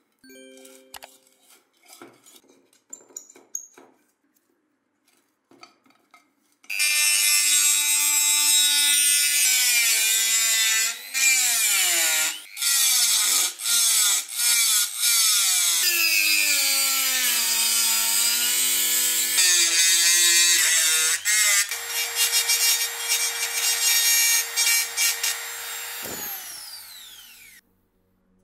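A few light knocks and taps, then from about seven seconds in a handheld rotary tool with a pink abrasive grinding stone runs at high speed, grinding rust off the kettle's rusty metal handle. Its motor pitch dips and recovers as the stone is pressed on, and the tool spins down near the end.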